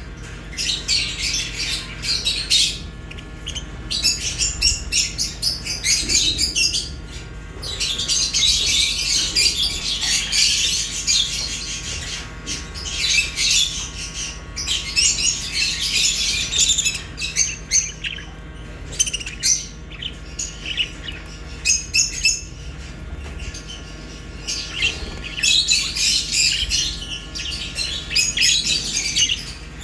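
Pet budgerigars and lovebirds chirping and chattering together, in busy bouts of a few seconds broken by short lulls.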